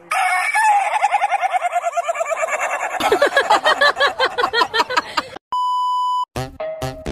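A rooster crowing in one long, drawn-out call that falls slowly in pitch with a rapid pulsing, turning choppier about three seconds in. About five and a half seconds in, a steady test-tone beep sounds for under a second, then electronic music with a beat starts.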